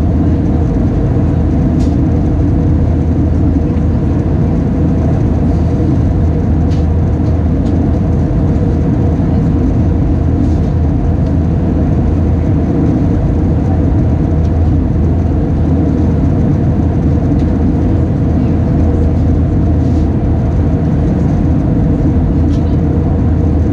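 Steady cabin noise of an Airbus A320 in flight, heard inside the cabin: a constant low drone of engines and airflow with a few faint, brief ticks.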